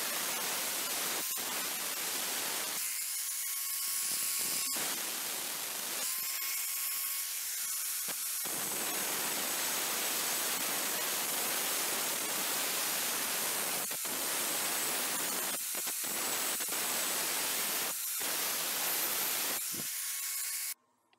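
Angle grinder with a thin cut-off disc slicing into a steel bar clamped in a vise: a loud, steady hissing grind. Twice the grind thins, leaving the motor's steady whine. The sound cuts off abruptly near the end.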